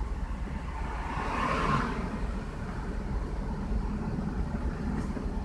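Lexus RX300's 3.0-litre V6 idling steadily with a low rumble, held at a high idle because the idle air control valve cannot close fully. A faint hiss rises and fades about a second in.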